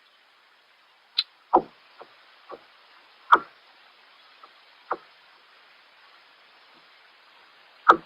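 Scattered hard knocks and taps of gear being handled in a kayak, about seven in all at uneven gaps, the loudest about one and a half seconds in, three and a half seconds in, and just before the end, heard through an action camera's waterproof case.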